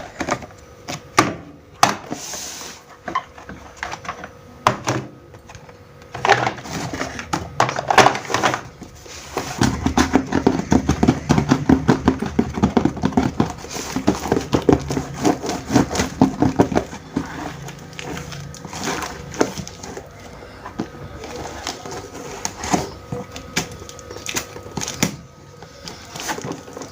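Small plastic toy kitchen pieces being handled and unpacked: scattered clicks and taps, with a busier stretch of rapid rustling in the middle.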